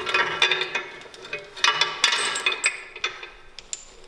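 Steel lifting chain clinking and rattling as its links are handled, in two bursts of metallic jingling, dying down near the end.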